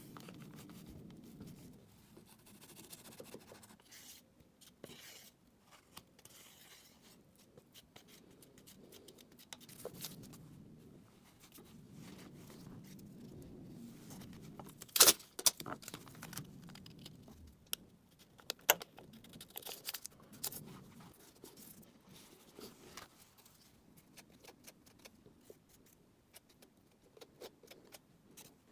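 Close-up handling sounds of two-part body filler being mixed with a putty knife: soft scraping and smearing broken by sharp clicks and taps of the tools, the loudest about halfway through.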